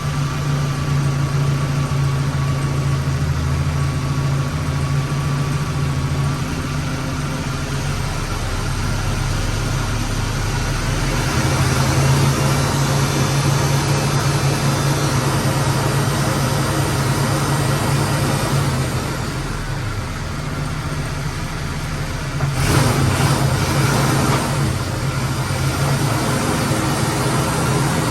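1992 Suzuki Sidekick running steadily. Its engine note shifts a few times, and there is a louder, noisier spell a little over twenty seconds in.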